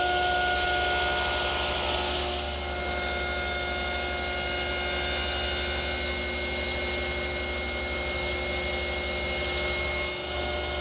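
Table saw running at full speed with a steady whine, its blade cutting through a cypress chair leg.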